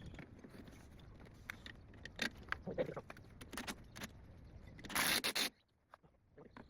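Scattered metallic clinks and rattles of tools and parts being handled during a shock absorber swap on a car. About five seconds in there is a short, loud burst of noise that cuts off abruptly.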